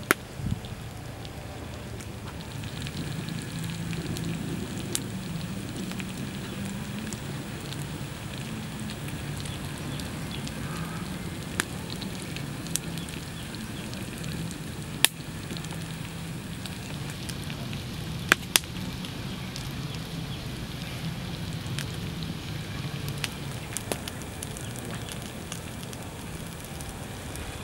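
Wood fire burning under a hot stone slab of grilling fish: a steady hiss and low rush, with scattered sharp crackling pops, the loudest around the middle.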